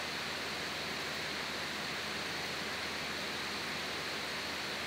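Steady hiss with a faint low hum and no other events: room tone picked up by the microphone during a pause in speech.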